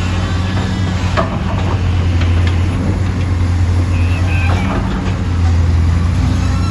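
Heavy earthmoving diesel engine running steadily at a constant speed with a deep hum, with a few sharp knocks about one and two seconds in.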